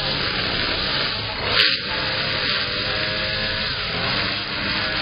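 A small handheld motorised garden tool running with a steady hissing whir, switched on and off abruptly, with one sharp click about one and a half seconds in.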